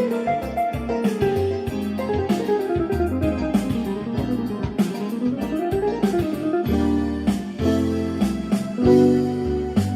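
Yamaha PSR-620 keyboard playing back one of its built-in demo songs: fast runs of notes climbing and falling, giving way about two-thirds of the way in to held chords over a bass line.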